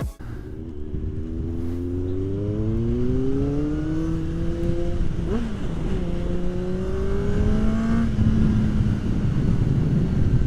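Kawasaki ZX-6R's 599 cc inline-four engine accelerating, revs climbing, with a quick dip at a gear change about five seconds in, climbing again and then holding steady at cruise. Steady wind noise throughout.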